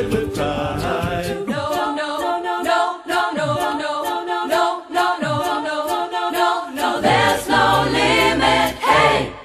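A cappella choir singing in close harmony without words, over a steady clicking beat. A deep bass line comes in about seven seconds in.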